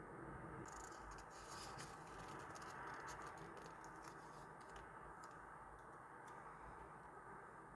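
Faint rustling and small sharp ticks of hands handling stickers and paper during diary decorating, over a steady low room hiss. The ticks cluster in the first few seconds and stop about five seconds in.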